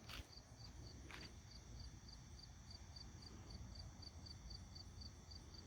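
Near silence with a faint cricket chirping steadily in short high pulses, about four a second. There are two light clicks near the start.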